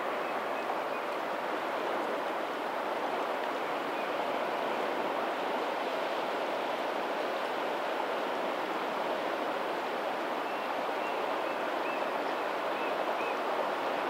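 Steady rush of water from a lagoon's tidal outflow running into the sea along a pebbly shore, with a few faint high chirps near the end.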